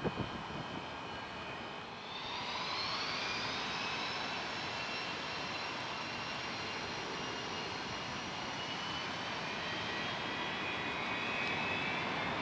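Boeing 737-200's Pratt & Whitney JT8D turbofans whining on the runway. About two seconds in they spool up, the whine rising in pitch and getting louder, then holding steady at higher thrust as the jet readies to depart. A few short knocks come right at the start.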